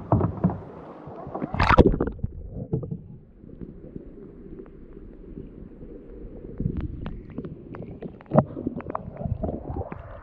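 Kayak paddling: water splashing and dripping from the paddle strokes, with scattered knocks, over a low rumble. The loudest splash comes about two seconds in.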